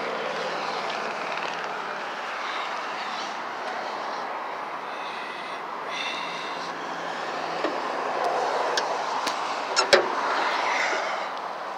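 Steady outdoor background noise, then a few light clicks and a sharp double clack just before the end as the Buick LeSabre estate wagon's hood is unlatched and swung up.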